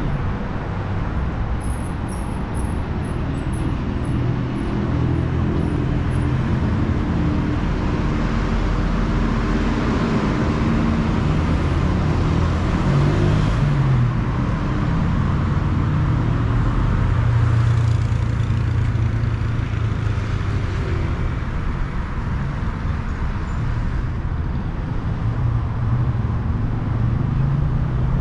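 City street traffic: car engines running and passing close by, a steady rumble whose engine notes rise and fall as vehicles come and go.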